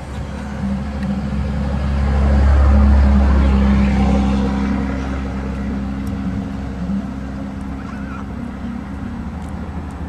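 Low engine hum of a passing motor vehicle, swelling to a peak about three seconds in and then fading, over a steady low drone.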